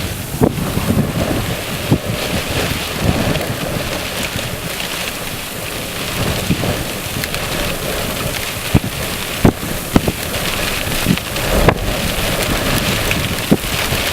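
Hail and heavy rain pelting down in strong gusting wind, with individual hailstones striking hard surfaces in sharp, irregular cracks. Wind buffets the microphone with low rumbles.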